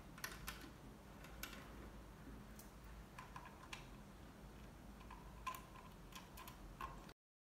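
Faint, scattered small clicks of hands working the front panel of a Streamax X3 mobile DVR, closing the hard-drive caddy door and turning its lock. The sound cuts off abruptly near the end.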